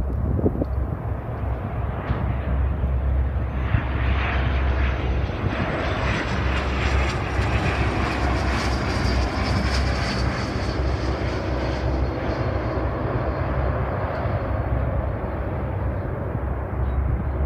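Jet airliner's engines passing, building over the first few seconds and easing off near the end, with a faint high whine that slowly falls in pitch. Strong wind buffets the microphone with a low rumble.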